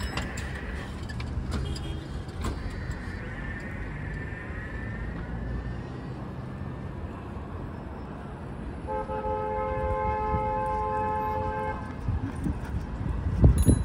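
Road traffic rumbling at a city intersection; about nine seconds in, a vehicle horn sounds one long, steady honk of about three seconds. Near the end there is a loud low thump.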